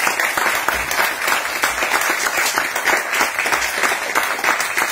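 Audience applauding: dense, steady clapping from a small seated crowd.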